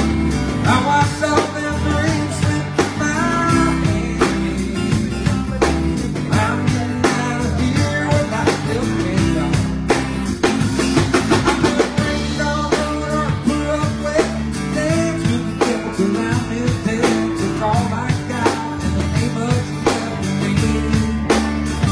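Live band playing: acoustic guitar, electric bass and drum kit together at a steady groove, with a quick run of drum hits about halfway through.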